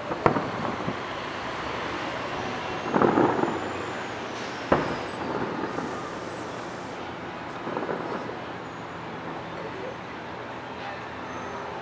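Distant fireworks bursting: a sharp bang just after the start, a rougher half-second rattle of reports about three seconds in, another sharp bang near five seconds, and a weaker burst near eight seconds. Steady city traffic noise runs underneath.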